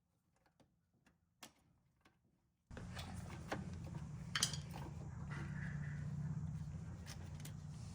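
Small clicks and knocks of washer drive parts being handled, including a louder knock about four and a half seconds in. A steady low hum comes in abruptly about two and a half seconds in.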